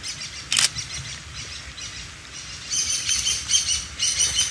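A songbird chirping in quick, repeated high notes, starting about halfway through and growing louder toward the end. There is a single sharp click or snap about half a second in.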